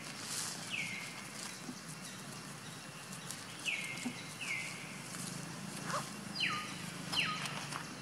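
Five short animal calls, each sliding down in pitch. The last two, near the end, start higher and drop further. A low steady hum runs beneath them.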